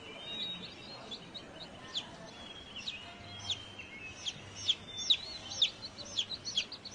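Faint bird chirps: short, high, arched calls, sparse at first and coming two or three a second over the last few seconds.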